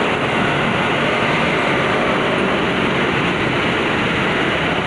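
A train passing close by, a steady, even rumble with no horn.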